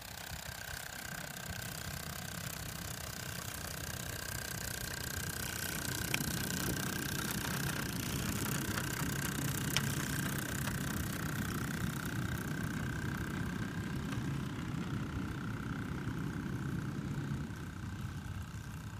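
Small-scale live-steam locomotive running on a garden railway track, rumbling along the rails. It grows louder as it passes close about halfway through, then fades as it runs away.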